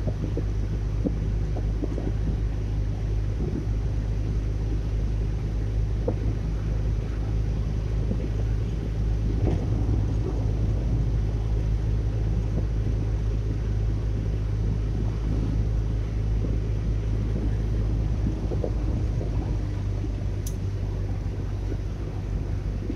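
Steady low rumble of engine and road noise inside a moving car's cabin, with a single sharp click near the end.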